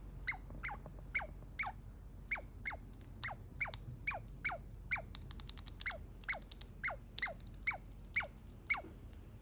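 Baby squirrel calling excitedly: a steady run of short squeaks, each falling sharply in pitch, about two or three a second, with a brief burst of rapid clicks about five seconds in. The calls stop shortly before the end.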